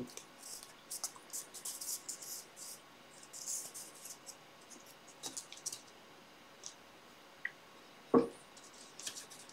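Faint rustling and scratching of a paper strip being handled and pressed along the edge of a picture frame, with a single thump about eight seconds in.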